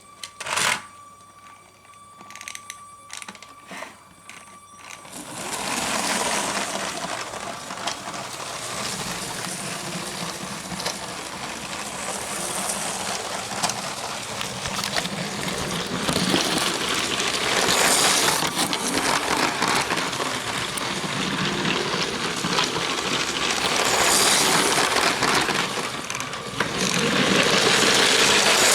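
Motorized Lego train switched on with a click, then its small electric motor whirring and its wheels clattering along the plastic track from about five seconds in, the sound swelling and fading as it goes round.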